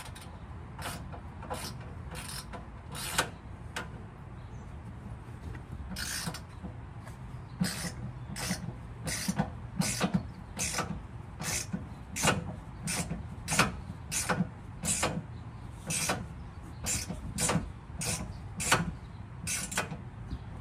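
Ratchet wrench clicking in short strokes while tightening a fog light mounting bolt, sparse at first and then about two clicks a second from about six seconds in.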